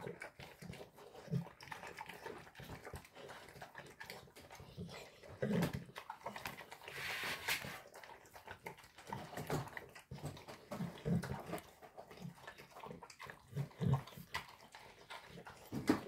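A dog eating a meal of chopped meat and vegetables from a metal bowl: irregular wet chewing, licking and smacking sounds.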